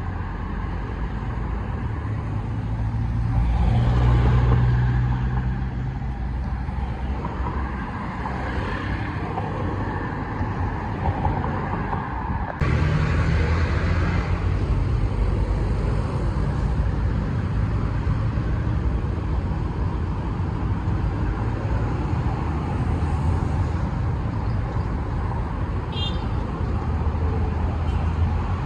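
Steady road traffic on a multi-lane city road, with a vehicle passing close and louder about four seconds in. Near the middle the sound changes abruptly to a different, steadier traffic hum.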